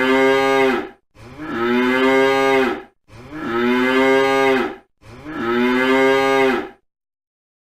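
Cow mooing: four long, identical moos in a row, about two seconds apart, each holding a steady pitch with a slight fall at the end.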